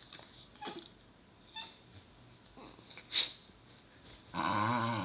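Basenji dogs squabbling over a tail: a couple of faint short whimpers, a short sharp noise about three seconds in, then a loud low wavering growl near the end.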